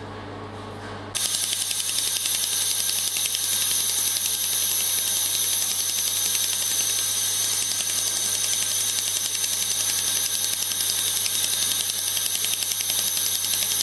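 Handheld pulsed laser welder firing on stainless steel: a dense, fast crackle of ticks starts abruptly about a second in and runs evenly, over steady high-pitched tones and a low hum from the machine.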